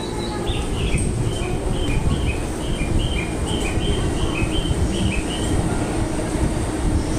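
The Shiki-shima cruise train pulling in alongside the platform, with a steady low rumble. Over it, a run of short high two-pitch chirps repeats about twice a second and stops about five and a half seconds in.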